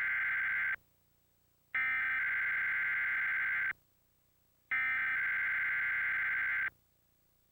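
Emergency Alert System SAME header data bursts: harsh, buzzy digital warbling tones that encode the alert header for a Required Weekly Test. One burst cuts off just under a second in, then two more follow, each about two seconds long and a second apart.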